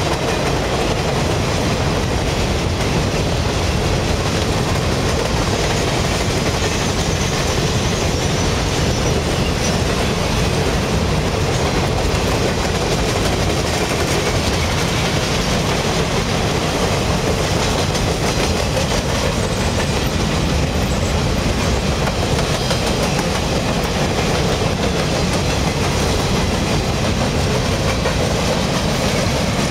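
Empty sugarcane cars of a U.S. Sugar freight train rolling steadily past, their steel wheels running over the rails.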